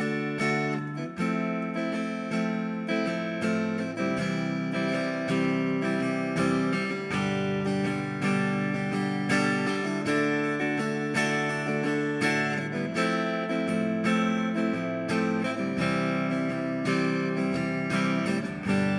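Guitar strummed in a steady rhythm through a progression of simple open chords (C major, G major, Fmaj7 and D major), changing chord every few strums. A final chord is left ringing near the end.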